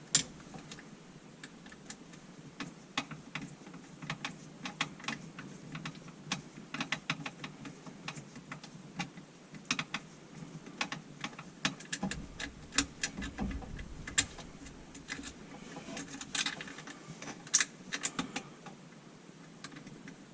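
Irregular light clicks, taps and clinks of tools and small metal parts being handled during garbage disposal removal. A brief low rumble comes about twelve seconds in.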